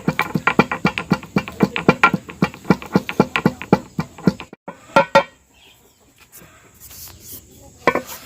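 Pestle pounding dry spices (dry ginger, coriander seeds, peppercorns, cinnamon) in a mortar: quick ringing strikes, about four or five a second. They stop about halfway through, with two more strikes a moment later.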